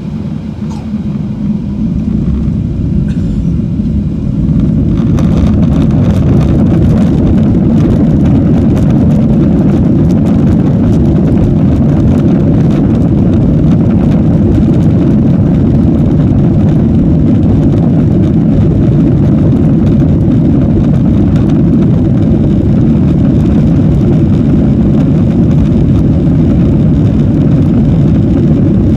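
Boeing 737-800 CFM56-7B turbofan engines spooling up to takeoff thrust, growing louder over the first five seconds. They then hold a steady, loud, deep rumble and rushing noise, heard from inside the cabin, as the jet accelerates for takeoff.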